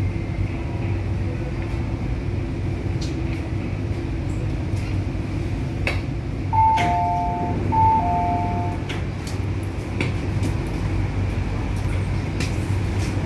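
SP1900 train's two-note door chime, a higher note then a lower one, sounding twice as the doors open, over the steady hum of the train standing at the platform.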